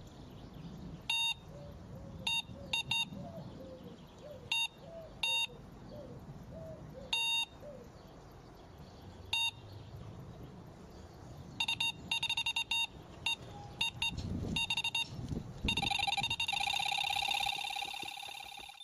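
Electronic sound-effect beeps: short digital blips at irregular intervals, with faint small chirps under them, then a quick flurry of blips and two low whooshes, ending in a held electronic tone.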